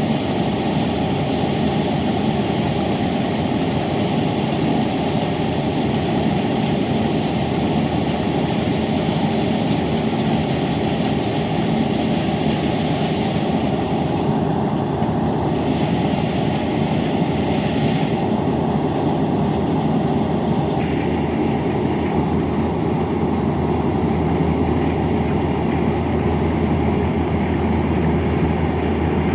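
Boat engine running steadily, heard on board as a constant low drone.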